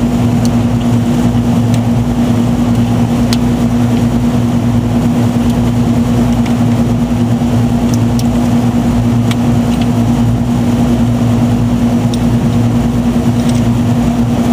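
Steady machine hum: a deep, even drone at the pitch of mains hum, running unchanged. A few faint small clicks come from hands working the wires and terminals of an air-conditioner run capacitor.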